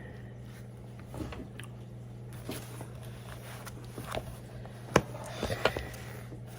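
Faint scratching and light tapping of a pen writing on paper, with one sharper tap about five seconds in, over a low steady hum.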